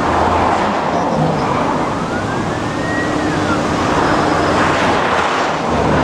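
Steady road noise inside a car crawling in heavy traffic. Over it, a faint siren wails up and down, its rise and fall repeating about every four seconds.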